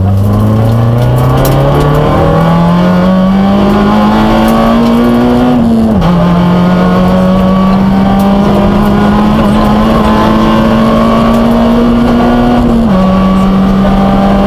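Peugeot 106 N2 rally car's engine heard from inside the cabin, accelerating hard on a special stage. The revs climb for about five seconds and drop at an upshift about six seconds in. They then hold high and steady, with a short dip near the end.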